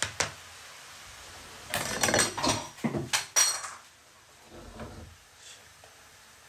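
A metal utensil and a frying pan clatter and scrape on the gas stove as fish fillets are worked in the pan. There are a couple of clicks at the start, then a burst of loud metal knocks with brief ringing in the middle, then a few softer knocks, over the faint steady hiss of frying oil sizzling.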